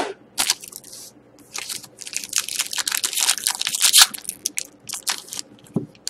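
Foil wrapper of a pack of hockey cards being crinkled and torn open by hand: a run of irregular crackling crinkles, loudest about three to four seconds in.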